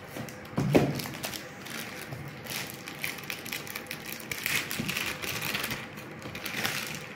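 Clear plastic shrink-wrap crinkling and crackling as it is picked at and peeled off a retail box, a dense run of small crackles, with one louder bump a little under a second in.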